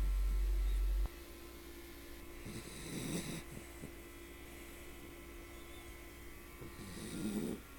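Small Bichon Frisé mix dog snoring in its sleep, two snores about four and a half seconds apart, the first about two and a half seconds in and the second near the end. A loud low hum sounds for the first second and cuts off abruptly, and a faint steady hum runs underneath.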